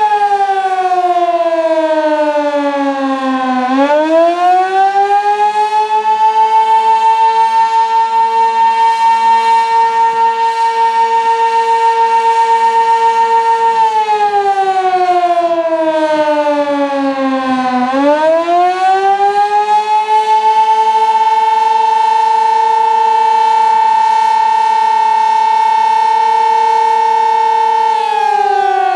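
Sentry 16V1T-B outdoor warning siren sounding the attack signal. Its tone falls in pitch and swings back up twice, holding high for several seconds between the dips, with a regular rise and fall in loudness.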